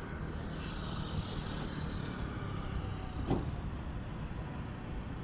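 Steady road-traffic noise: a vehicle running past, with one short knock about three seconds in.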